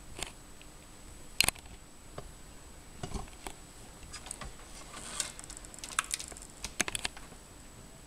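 Handling noise from a handheld camera: scattered light clicks and rustles, the sharpest about a second and a half in and several more in the second half, over a faint steady high-pitched whine.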